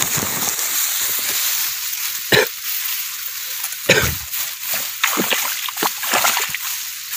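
Water splashing in a flooded rice paddy as a hooked snakehead thrashes among the rice stalks. There are two sharp splashes about two and a half and four seconds in, and several smaller ones after that.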